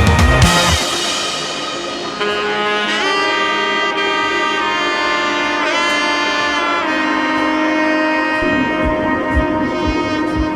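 Background music: a heavy drum section breaks off in the first second, leaving long held melody notes that bend in pitch, and a steady low beat comes back in about eight seconds in.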